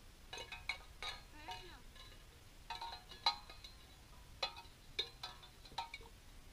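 Tin cans on a tow line clinking and clanking as they are pulled along over grass: irregular clusters of light metallic knocks, each with a short ring.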